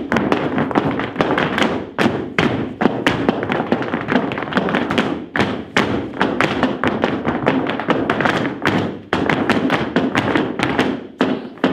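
Several dancers' heeled shoes stamping and tapping on a studio floor in flamenco footwork (zapateado). The strikes come thick and fast, several a second, without a break.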